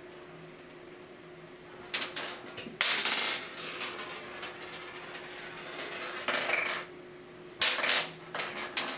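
A cat batting a small toy ball around an acrylic shower tray: bursts of rattling knocks and skittering as the ball hits and rolls across the plastic, mixed with the cat's paws scrabbling. The bursts are loudest about three seconds in and again near the end.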